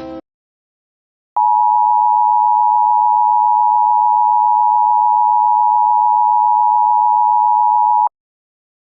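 A loud, steady electronic alert tone of two close pitches just under 1 kHz sounding together. It starts about a second and a half in, holds for nearly seven seconds and cuts off sharply. It is the attention signal that opens a mock emergency-alert test broadcast.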